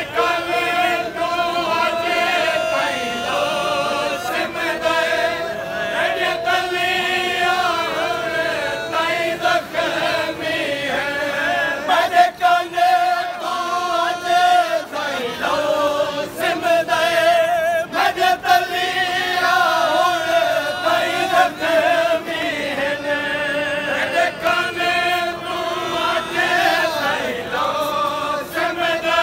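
A crowd of men chanting a noha, a Shia mourning lament, together in a loud chorus. Sung voices carry on without a break, some with a wavering vibrato.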